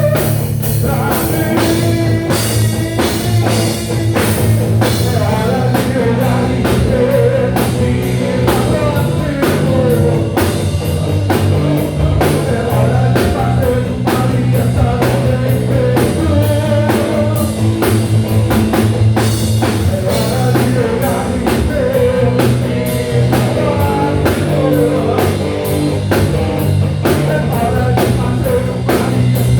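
Rock band playing live: a drum kit keeps a steady beat under sustained bass notes and electric guitar.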